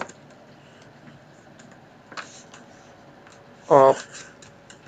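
A few scattered keystrokes and clicks on a computer keyboard, spaced well apart.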